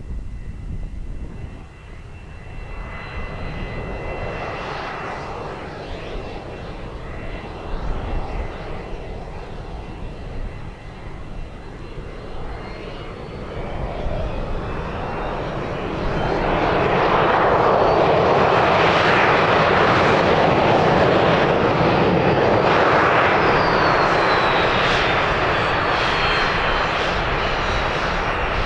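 A-4 Skyhawk jet going by, its engine noise building to a loud rush a little past halfway, with a falling whine near the end as it passes.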